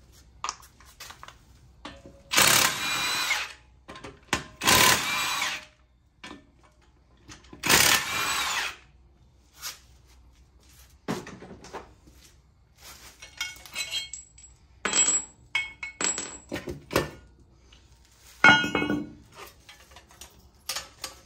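Cordless impact wrench run in three bursts of about a second each, working the hub bolts on a truck steering knuckle. After them come scattered metal clinks and knocks as the parts are handled, with one louder burst near the end.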